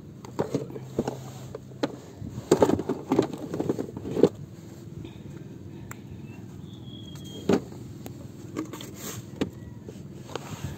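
Close-up handling noise as a caught fish is held and worked off the hook in a small boat: irregular clicks, knocks and rustles, clustered about two and a half to four seconds in, with one more knock past halfway.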